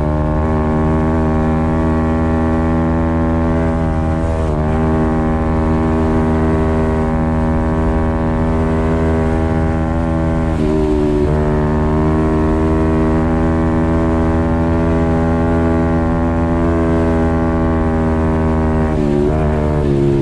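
Apollo RFZ 125cc pit bike's single-cylinder four-stroke engine held at high, steady revs on a top-speed run. The pitch dips briefly and climbs back three times, about four, ten and nineteen seconds in.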